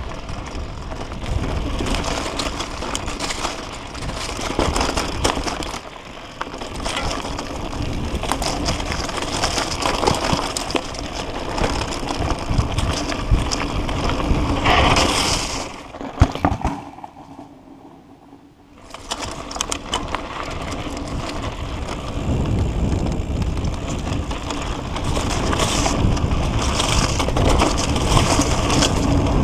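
Mountain bike riding over a dry dirt trail: tyres crunching over dirt and loose debris, with the bike rattling and clicking over bumps. The noise drops away for a couple of seconds a little past halfway, then picks up again.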